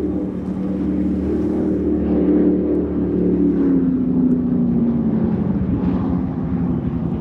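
High-performance powerboat engines running hard as the boat passes, the pitch of the engine note dropping as it goes by.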